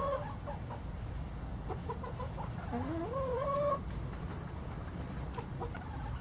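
Hen vocalising: a few short clucks, then one drawn-out rising call about three seconds in, over a steady low background rumble.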